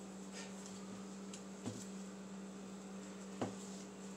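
Gloved hands pressing a chicken breast into flour-and-cornstarch breading on a plate, giving two soft thumps, one near the middle and one near the end, over a steady low hum.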